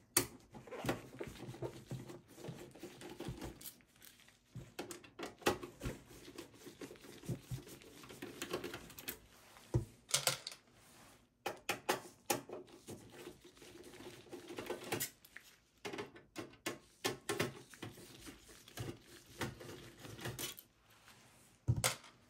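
A Phillips screwdriver backing out the power-supply mounting screws on a desktop PC's steel case, making irregular clicks, ticks and scrapes of the bit, screws and metal, with handling noise between them.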